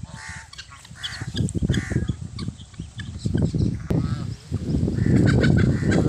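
Free-range poultry flock calling, with several short nasal honking calls. A loud low rumble builds about five seconds in.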